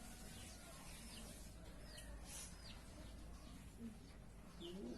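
Faint chirps of small birds: short, high, falling notes at irregular intervals.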